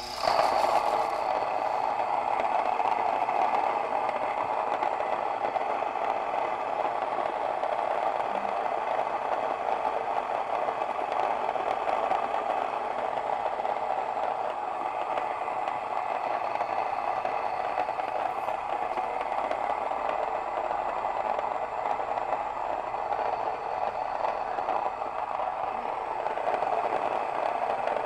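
Mockmill electric stone grain mill grinding hard red winter wheat berries into flour: a very loud, steady whirring and grinding noise that starts right at the beginning and holds evenly throughout.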